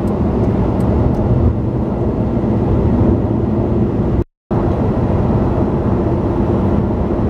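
Steady road and engine drone of a moving car, heard from inside the cabin. The sound cuts out completely for a moment about four seconds in.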